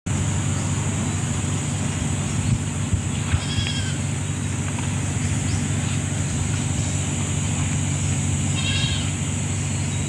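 Outdoor ambience: a steady high drone of insects over a low rumble, with two short wavering animal calls, one about three and a half seconds in and one near nine seconds.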